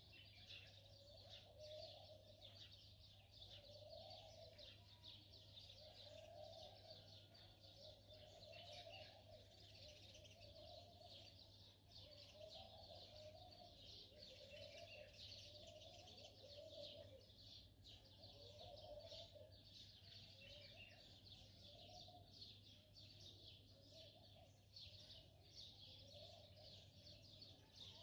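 Near silence: a faint, continuous crackling hiss.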